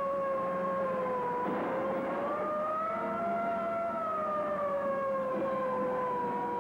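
Police car siren wailing, its pitch rising slowly from about a second and a half in and falling back after the middle, over the steady noise of a car driving at speed.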